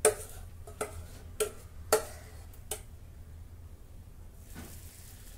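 Metal ladle clinking against a steel vessel of batter, five sharp clinks about two-thirds of a second apart as the batter is scooped and stirred; the clinks stop about three seconds in.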